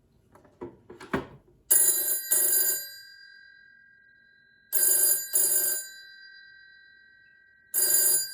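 Siemens S62 rotary telephone's electromechanical bell ringing in pairs of short bursts, a pair about every three seconds, with the gongs ringing on and fading between pairs. A few small clicks come before the first ring.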